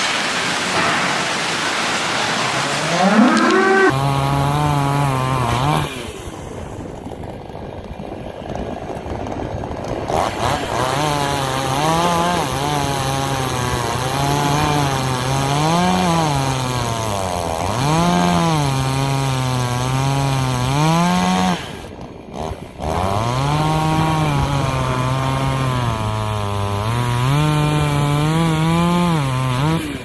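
Chainsaw engine running, its pitch rising and falling again and again as it revs up and drops back, with a short break about three quarters of the way through.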